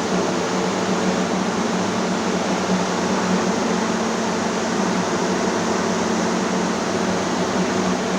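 Corn drying machine running steadily: a constant rush of air from its fan, with a low steady hum underneath.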